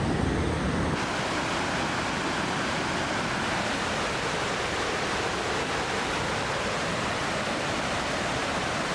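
A waterfall in heavy flow, its water rushing in a steady, even roar.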